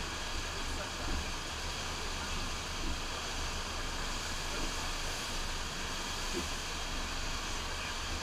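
Steady rush of water from a FlowRider sheet-wave machine, pumped water pouring up and over the wave surface, with a low rumble underneath.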